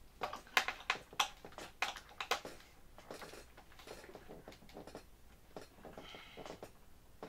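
Screwdriver tightening a screw that holds the horizontal stabilizer to the fuselage of a foam RC airplane: a run of irregular small clicks and ticks, loudest and closest together in the first two and a half seconds, then fainter.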